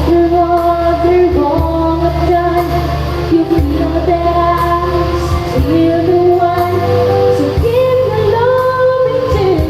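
A song: a high female voice singing held, gliding notes over a steady instrumental accompaniment.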